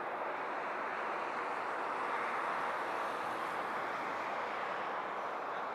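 Jet airliner's engines at takeoff, heard as a steady rushing noise with no distinct tones and an even level.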